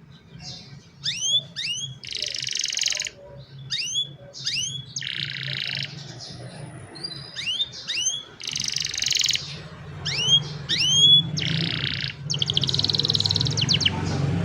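Young domestic canaries singing: pairs of quick rising chirps alternate several times with dense, buzzing rolls held for about a second each.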